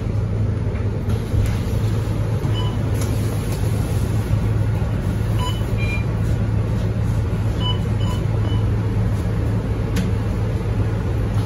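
Scania K230UB single-decker bus's diesel engine idling steadily while the bus stands at a stop. A few short electronic beeps from the fare-card readers sound through the middle.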